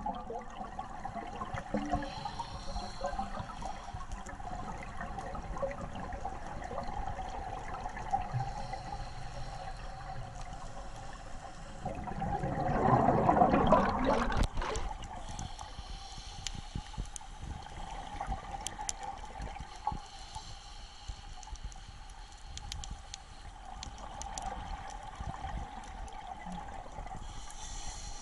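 Scuba exhaust bubbles heard underwater, muffled: a steady hiss and bubbling with scattered small clicks, and one loud rush of gurgling bubbles about 13 seconds in.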